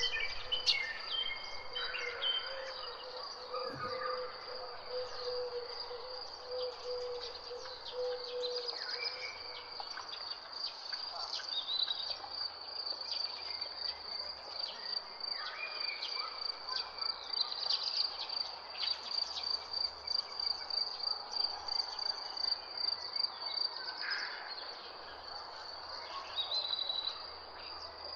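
Birds chirping and calling in short scattered notes over a continuous high insect trill like a cricket's. A lower steady tone runs underneath for about the first third, then drops out.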